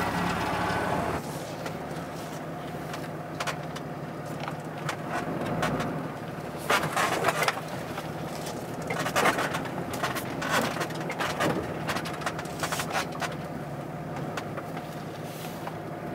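Pickup truck engine running at idle, a steady low hum, louder for the first second. Scattered knocks and scrapes over it.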